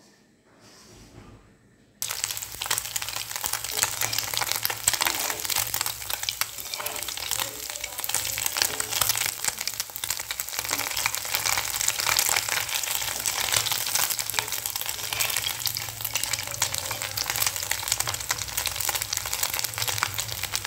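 Food sizzling and crackling in hot oil in a pan, a dense, steady frying crackle that starts suddenly about two seconds in.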